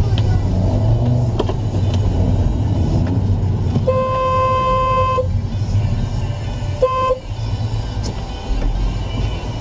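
A car horn sounds one long blast of about a second and a half, then a short toot about three seconds later, over a steady rumble of engine and road noise.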